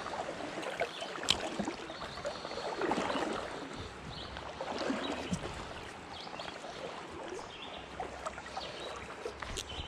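Shallow river water running and lapping around a wading angler, an irregular wash of water noise with a few small clicks and knocks.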